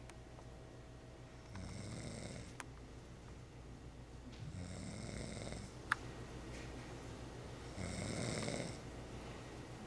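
Snoring like a motorboat: three long snores about three seconds apart, with two sharp clicks between them.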